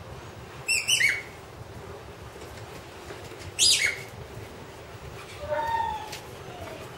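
Young Dobermans giving short high-pitched yelps: two sharp ones that fall in pitch, about a second in and again around three and a half seconds in, then a softer whine near the end.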